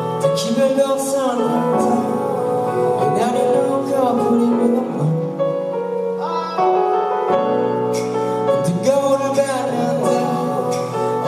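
Music: a song's intro, with sustained notes and some vocals.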